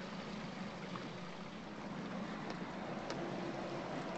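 A small boat's motor running steadily with an even low hum, under a light hiss of water and air.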